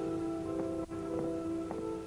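Soft background music from the drama's score: a held chord with single notes sounding about every half second over it.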